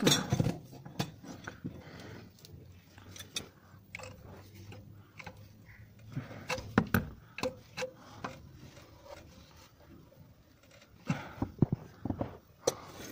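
A rubber exhaust hanger being worked onto its metal hanger hook under a car with a metal hand tool: irregular scraping, small clicks and knocks of metal and rubber, with bursts of sharper knocks about seven seconds in and again near the end.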